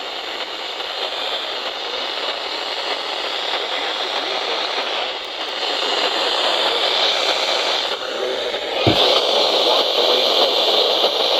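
Steady radio static with no voice: the weather radio broadcast has dropped out to hiss in the middle of the warning message. About nine seconds in there is a sharp click, after which the hiss is a little louder.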